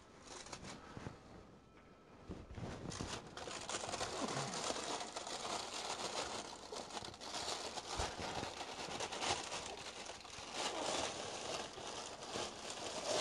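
Parchment paper crinkling and rustling as a freshly baked loaf is lifted out of a hot Dutch oven, with scattered clicks and a single knock about eight seconds in.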